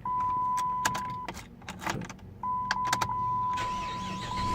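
A steady, high single-pitched electronic beep sounds for about a second, stops, then comes back about two and a half seconds in and holds on. A handful of sharp clicks fall in between.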